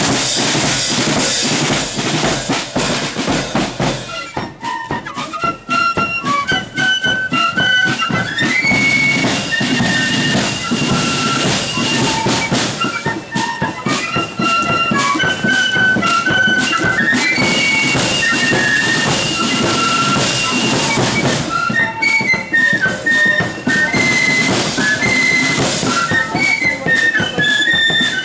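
Marching flute band of the blood-and-thunder kind: heavy drumming throughout, with the flutes coming in about four seconds in to play a high melody over the drums.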